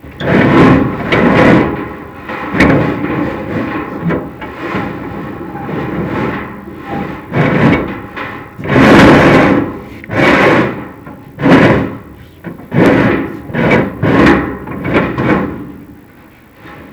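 Chimney inspection camera scraping and knocking against the inside of a factory-built fireplace's metal flue as it is pushed down, in a series of loud rasping scrapes and bumps about a second apart.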